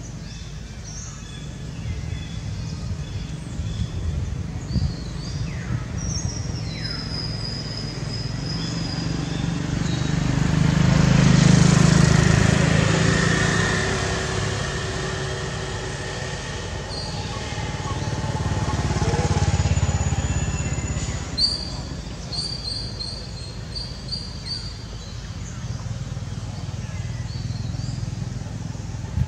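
A motor vehicle passes, its engine noise rising to a peak about twelve seconds in and fading, with a second, quieter pass a little later. Short bird chirps and whistles sound throughout.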